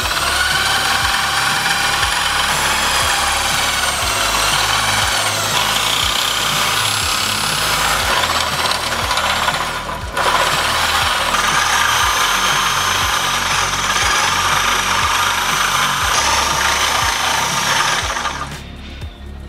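Electric drill driving a metal hand meat grinder, its motor whining as the grinder crushes pieces of pepper and eggplant. The whine rises and falls in pitch with the load. The drill cuts out briefly about halfway and stops shortly before the end. Background music with a steady beat plays underneath.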